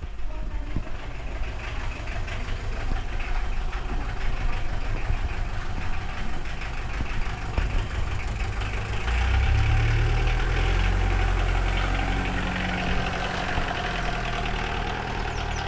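A vehicle engine comes in about nine seconds in and runs steadily at idle, after a low, steady rumbling noise.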